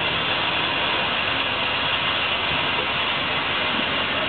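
Standing railway locomotive running steadily, an even, unbroken rushing hiss.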